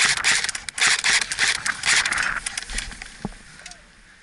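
Rustling and scraping of brush or foliage rubbing against the head-mounted camera and gear as the player moves, with irregular crackly strokes that die down about two and a half seconds in.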